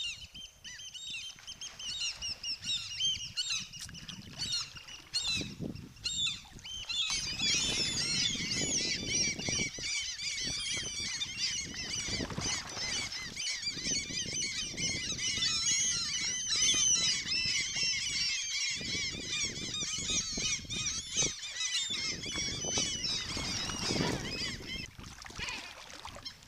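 A gull colony: many gulls calling at once in a dense, overlapping chorus of high squawks, which swells about seven seconds in. Under it runs a low rumble of wind and water.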